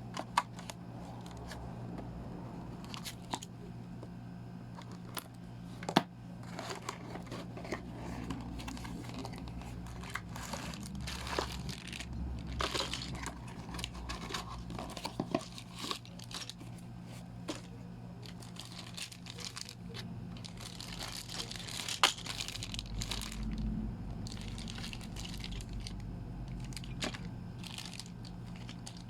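Toy packaging being opened: cardboard and plastic tearing and crinkling, with scattered sharp clicks and knocks, over a steady low hum.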